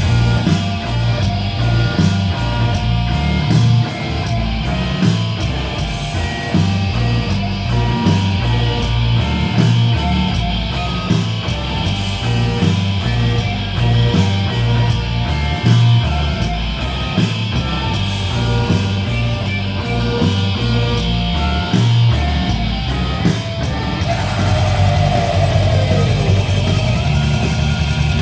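Heavy metal band playing live: distorted electric guitar over a steady pattern of drum hits.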